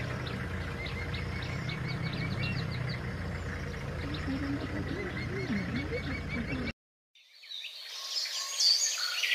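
Birds chirping in quick repeated notes over a steady low hum. The sound drops out abruptly for about half a second near the end, then louder, busier bird song fades back in.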